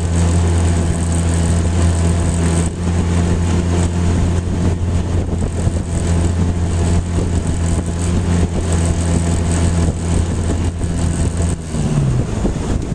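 Tohatsu outboard motor running steadily under way, then near the end its pitch drops and it dies: the engine has run out of gas.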